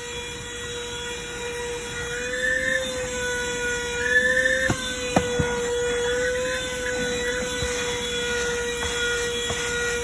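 Small handheld 12-volt car vacuum motor running with a steady high whine, its pitch wavering slightly as it works, with a few sharp clicks from about halfway through as dirt is sucked up.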